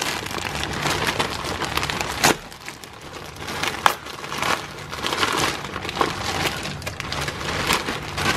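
Plastic poly mailer bag being pulled open and handled, crinkling and rustling continuously, with two sharp snaps about two and four seconds in.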